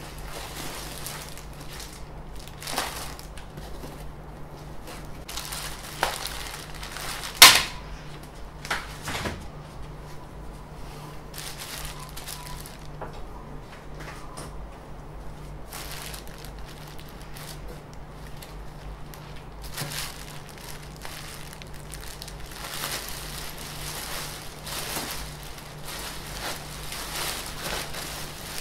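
Unpacking sounds: clear plastic bubble-wrap packaging rustling and crinkling, with scattered knocks and clunks of parts being handled and set down, the sharpest about seven seconds in. A steady low hum runs underneath.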